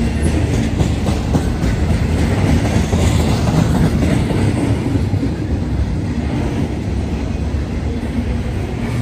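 Intermodal freight train cars rolling past: a steady rumble of steel wheels on the rails, with clickety-clack as the wheels pass over the rail joints.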